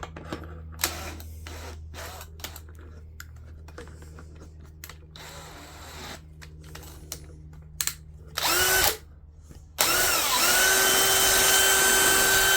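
Electric drill mounted in a drill guide. First come scattered clicks and handling knocks, then a brief spin-up burst about eight and a half seconds in. Near the end the drill runs up to speed and holds a steady whine for about three seconds.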